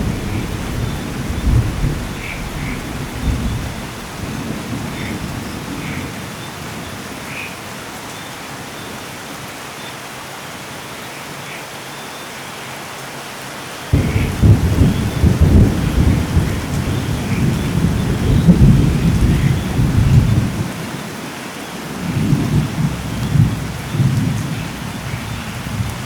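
Steady rain with rolling thunder. A rumble fades away over the first few seconds. About halfway through a sudden thunderclap breaks and rumbles on for several seconds, and a shorter rumble follows near the end.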